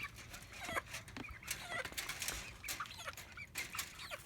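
Ten-week-old chickens making soft clucks and short chirping calls, scattered irregularly, with a few light clicks among them.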